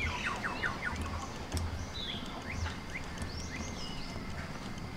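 Small birds chirping: a quick run of short descending chirps at the start, then scattered high chirps and tweets, over a faint low rumble.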